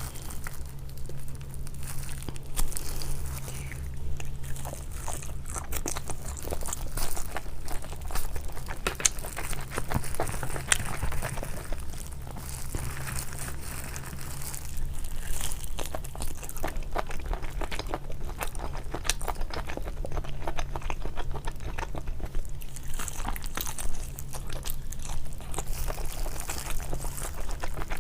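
Close-miked eating: irregular chewing and crunching of food, with some crinkling.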